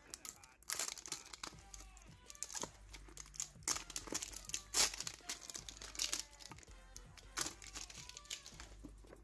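Plastic-foil booster pack wrappers crinkling and metal Poké Ball tins being handled, with irregular crackles and clicks.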